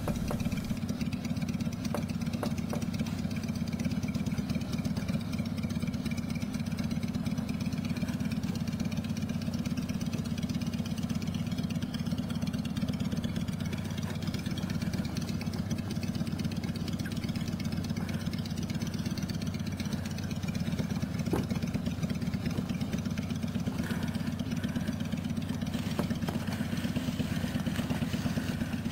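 A steady low drone, like an engine idling, that holds at an even level with no breaks.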